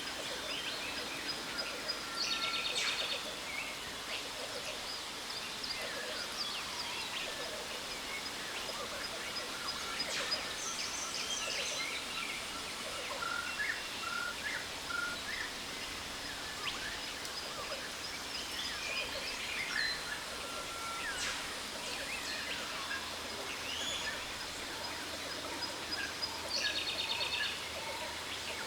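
Jungle waterfall ambience: the steady rush of falling water, with many birds calling over it in chirps, quick trills and sweeping whistles. A thin high steady tone runs underneath. From about two-thirds of the way through, a lower note repeats at an even pace.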